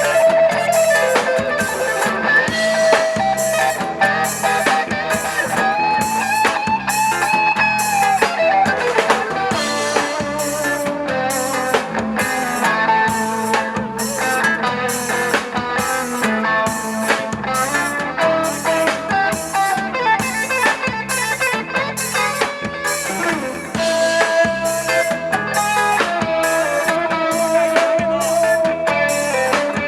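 Instrumental rock music: an electric guitar playing a lead line with bent, held notes over a steady drum-kit beat.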